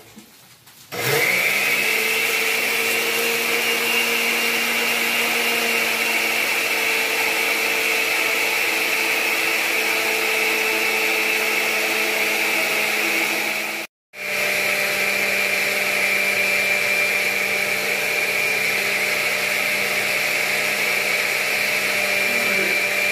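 Countertop blender with a glass jar running steadily, starting up about a second in, blending eggs, lime juice and a thin stream of oil into mayonnaise. The motor hum breaks off for an instant about halfway through, then runs on a little lower in pitch.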